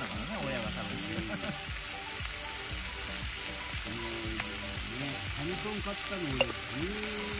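Meat frying in a black iron frying pan over a wood fire, sizzling steadily, with a couple of small pops.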